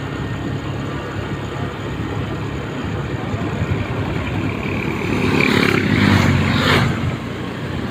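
Strong wind buffeting the microphone in a steady rumbling rush, with a louder gust swelling about five seconds in and easing near the end.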